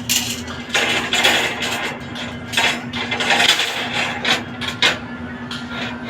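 Construction-site work noise: irregular knocks and clanks with two longer stretches of scraping, over a steady low hum.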